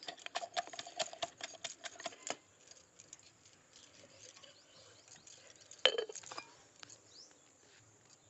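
Quick clicks and taps of a utensil against a metal dish for about two and a half seconds, the dish ringing faintly, then softer scattered ticks and one sharp knock about six seconds in.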